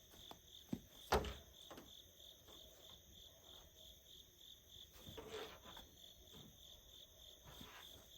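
Crickets chirping steadily in an even pulse. About a second in there is one sharp knock, with a few lighter clicks and a soft rustle of handling while packing is searched through.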